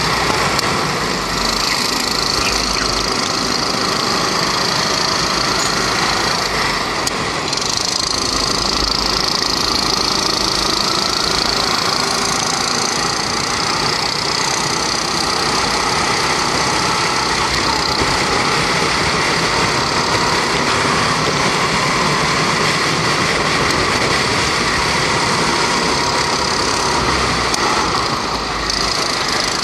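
Honda 270cc four-stroke rental kart engine running hard through a racing lap, its pitch slowly rising and falling with the throttle through the corners.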